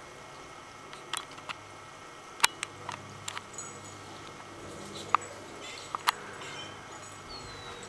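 Outdoor ambience with a low steady hum, scattered sharp clicks and ticks at irregular moments, and a short falling chirp near the end.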